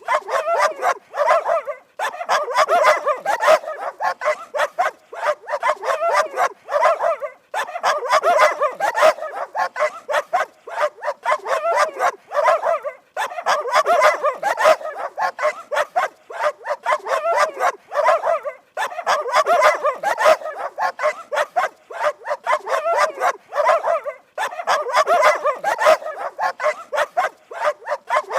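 Dogs barking aggressively in rapid, dense volleys, with brief pauses about every five to six seconds.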